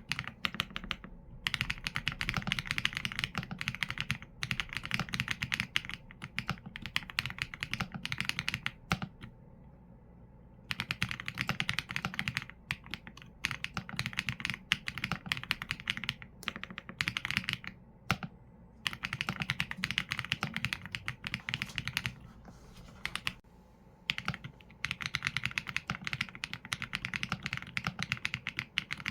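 Fast typing on a mechanical keyboard with Leobog Graywood V4 linear switches and PBT keycaps: dense runs of keystroke clacks with a low thock under each press, broken by short pauses, the longest about nine seconds in.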